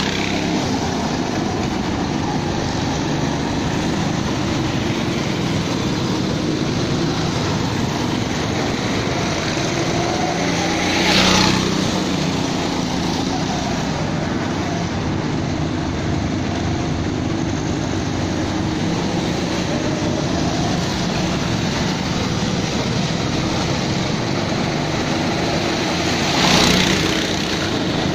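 Go-kart engines running steadily around the track, a small-engine drone with the pitch rising and falling as drivers work the throttle. A kart passes close by twice, louder for a moment about eleven seconds in and again near the end.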